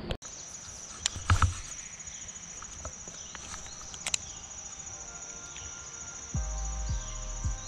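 Insects trilling steadily in a high, pulsing band, with a few sharp clicks and knocks from handling a baitcasting rod and reel. Faint music comes in near the end.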